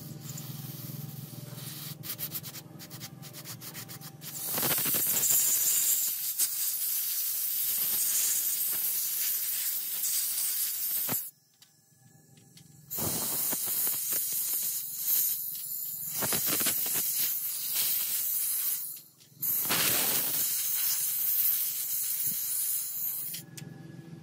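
Aerosol can sprayed through its thin red straw into the ports of a Husqvarna chainsaw carburetor to flush out its passages: a loud hiss in three long bursts of several seconds each, starting about four seconds in, with short breaks between.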